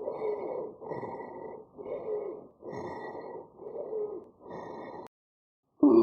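Stethoscope recording of abnormal breath sounds: about six breaths, roughly one a second, each carrying a musical wheeze whose pitch falls. They stop about five seconds in, and a louder, higher-pitched breath sound with rising tones starts right at the end.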